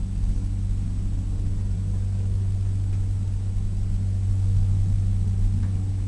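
Elevator running mid-travel: a steady low hum from the drive and the moving car, growing slightly louder in the second half.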